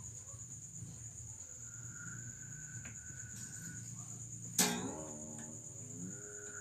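A guitar string plucked once about halfway through, its note sliding upward in pitch as the tuning peg is turned: the string being tightened up to pitch. Crickets chirr steadily in the background.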